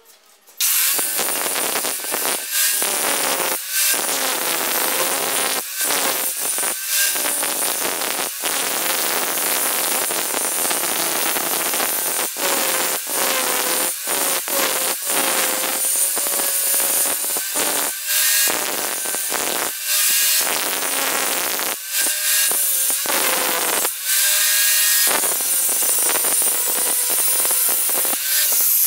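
Electric angle grinder working steel, starting about a second in and running almost without a break. Its motor tone wavers and dips briefly as the disc is pressed into and eased off the metal.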